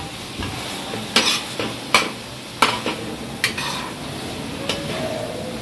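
Mutton chops sizzling in oil on a tawa while a metal spoon stirs them, its edge scraping and knocking against the pan about once a second.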